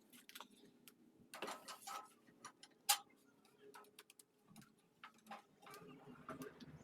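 Faint, irregular clicks and light knocks, with one sharper click about three seconds in.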